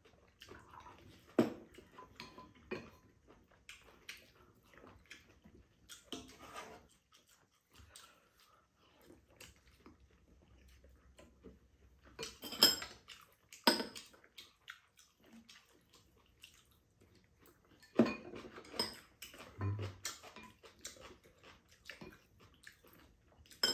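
Metal spoons and chopsticks clinking against ceramic bowls during a meal, in scattered light taps with a few sharper clinks about a second and a half in, twice around twelve to fourteen seconds in, and again near eighteen seconds.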